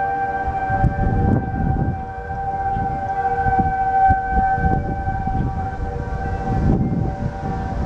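Outdoor tornado warning sirens sounding together in a steady, held tone, with a low rumble underneath.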